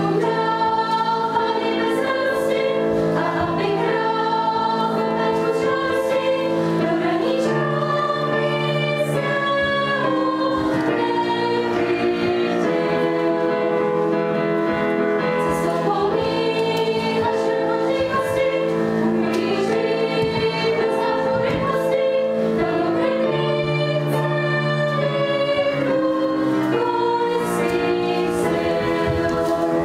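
Choir singing in long held notes as part of the opera's music.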